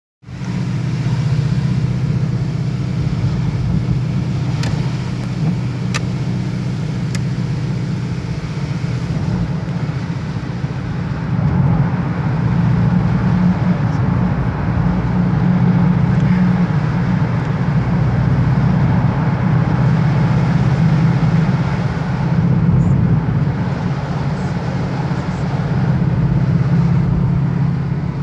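Car engine and road noise heard inside a moving car's cabin, a steady low hum that grows a little louder partway through. A few faint clicks come in the first several seconds.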